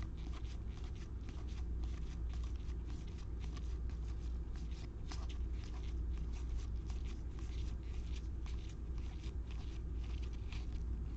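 Baseball trading cards being handled and flipped through by hand: a steady run of quick, light clicks and rustles of card stock, over a low steady hum.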